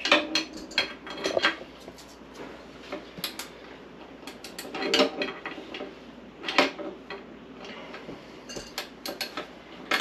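A metal wrench clinking and clanking against the metal top and frame of a Vevor chicken plucker as its bolts are tightened: scattered, irregular knocks, some briefly ringing.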